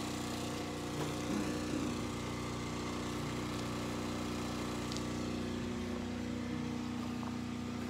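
A small engine or motor running steadily at a constant speed: an even drone that holds one pitch throughout.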